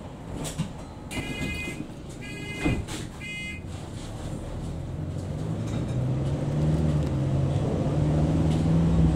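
Interior of a Mercedes-Benz Sprinter 516 CDI minibus on the move: three short electronic beeps in the first few seconds, then the diesel engine's steady note growing louder as the bus pulls harder.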